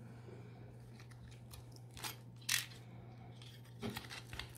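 Handling noise from 18650 lithium-ion cells being pressed into a Makita battery's cell pack by hand: a few scattered clicks and rustles, the loudest about two and a half seconds in, over a faint steady hum.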